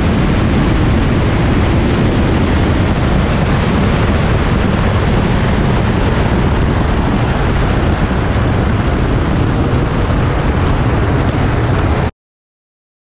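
Loud, steady wind rush on a camera mounted outside a Porsche 911 Turbo at highway speed during a roll race, cutting off suddenly about a second before the end.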